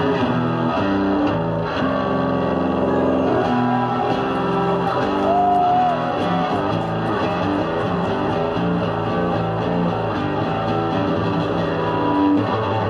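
Amplified electric bass guitar played solo live, a fast, dense run of notes with one note bent up and back down about five seconds in.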